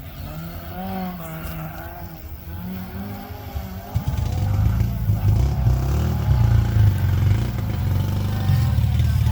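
Historic rally car engine blipping its throttle at a stage start, its pitch rising and falling, then running louder and rougher from about four seconds in.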